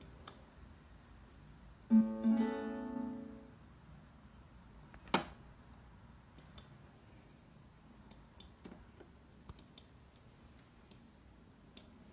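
Computer alert sound: a short strummed-guitar-like chord that fades over about a second and a half, followed a few seconds later by a sharp click and then a scattering of light mouse clicks.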